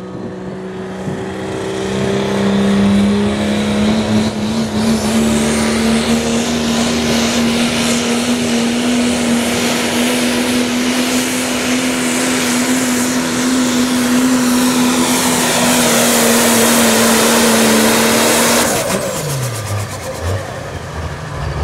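Diesel pickup truck engine held at high revs under full load as it pulls a weight-transfer sled down a pulling track, running steady with its pitch creeping slightly upward. Near the end the driver lets off and the engine winds down.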